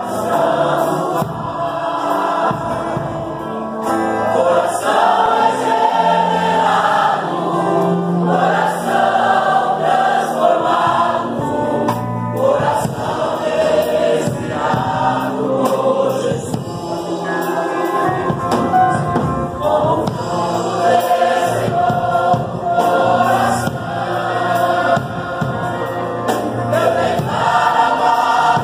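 A men's church choir singing a gospel hymn together, with keyboard accompaniment.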